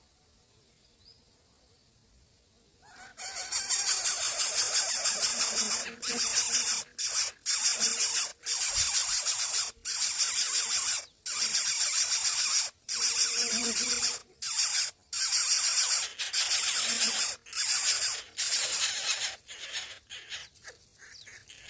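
Nestlings' harsh, high-pitched begging calls. They start suddenly about three seconds in and go on loudly in repeated bursts with short breaks.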